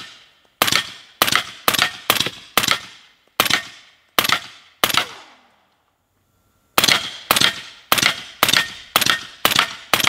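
Rapid semi-automatic rifle fire of subsonic 300 Blackout at an angled steel plate, about two shots a second, sixteen in all with a short break halfway. A ricochet whine falling in pitch follows a shot about halfway through and another near the end: the slow bullets deflecting off the angled steel instead of breaking up on impact.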